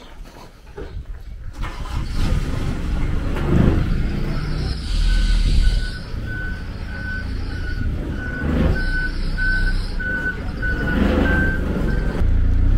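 A vehicle's reversing alarm beeping about twice a second, starting about five seconds in, over a low engine rumble that grows louder, with two short bursts of hiss.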